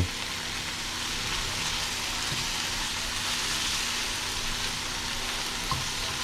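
Steak frying in a pan, a steady sizzle, with a light tap near the end.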